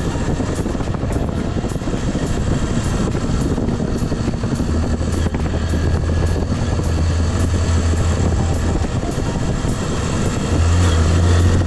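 Motorcycle running at road speed with heavy wind noise on the rider's microphone; the low engine hum swells about halfway through and again near the end.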